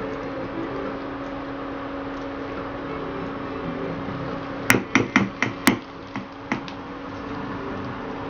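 Induction cooktop humming steadily under light stirring in a kadhai, then about halfway through a quick run of about five sharp taps as the spatula is knocked against the pan's rim, followed by two fainter ones.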